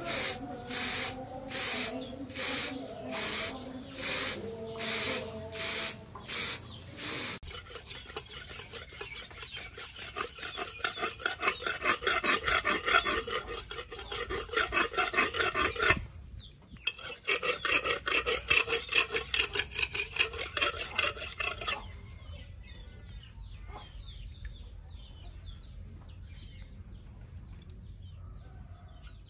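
An aerosol spray can gives a string of about ten short hisses. Then a leaf-spring steel knife blade is sharpened on a wet flat stone, with quick rhythmic back-and-forth scraping strokes and one brief pause. The strokes stop about three quarters of the way through, leaving only faint sounds.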